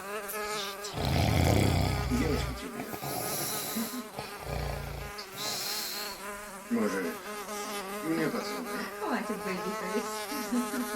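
Housefly buzzing, a steady hum that wavers and swoops in pitch as it flies about. In the first half a sleeping man snores twice, each low snore followed by a hissing breath out.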